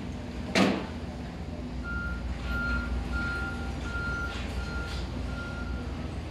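A construction vehicle's reversing alarm beeping about six times at a steady pace, one pitch, over a steady low rumble. A single sharp knock, the loudest sound, comes about half a second in, before the beeps start.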